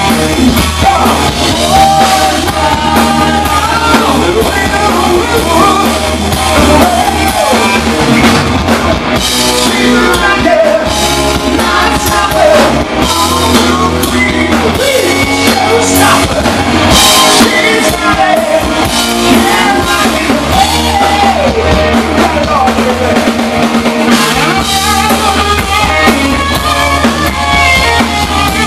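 Hard rock band playing live: distorted electric guitars, bass and a drum kit, with a lead singer over them.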